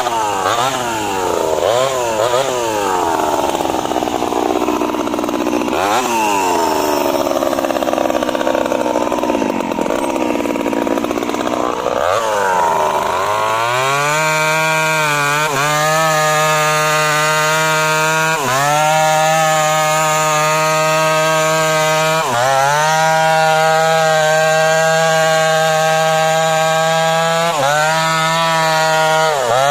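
Stihl MS 250 two-stroke chainsaw sawing into a teak trunk. For the first dozen seconds the engine revs up and down, then it holds a steady high pitch at full throttle, dipping briefly every few seconds.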